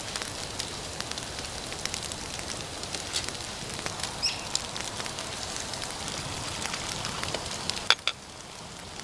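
Wood campfire crackling: a steady hiss scattered with many small sharp pops and cracks, one louder crack near the end.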